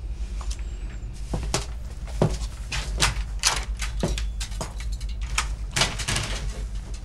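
A door being handled and footsteps in a small room: a run of irregular knocks and clicks from about a second in until near the end, over a steady low hum.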